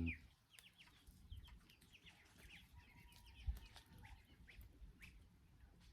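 Faint, scattered short bird calls, with a soft low thump about three and a half seconds in.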